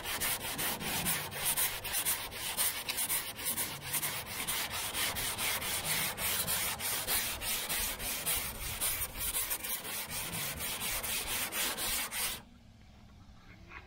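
Sanding block with sandpaper rubbed back and forth over the primed door of a pickup truck, in quick even strokes, blocking down the primer and guide coat to find high and low spots. The sanding stops shortly before the end.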